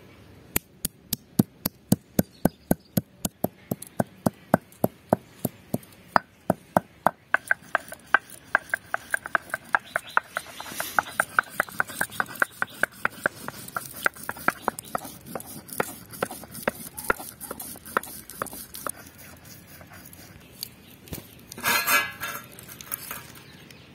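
Stone roller crushing green cardamom pods on a wet stone grinding slab: a run of sharp knocks, about three a second, then quicker back-and-forth strokes of stone rubbing on stone as the pods are ground to paste. A brief scraping sound comes near the end.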